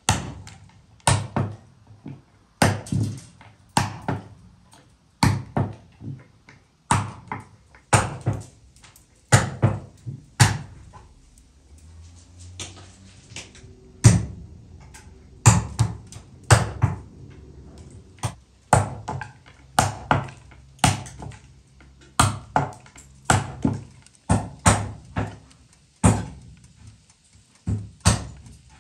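Hazelnuts being cracked one at a time in a wooden nutcracker box: sharp wooden knocks, a little more than one a second, in a steady rhythm.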